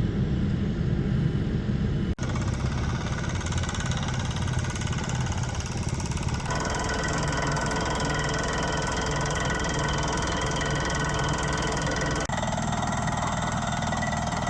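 Water-well drilling rig and its air compressor running steadily while driving steel casing down through the soil toward bedrock. The sound changes abruptly twice, about two seconds in and near the end.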